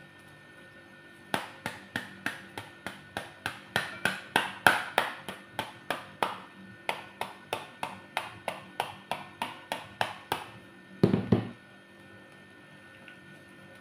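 Sharp, rapid taps of a metal rod on the rind of a halved pomegranate, about three a second for some nine seconds, knocking the seeds loose into a bowl. A single louder thud follows near the end.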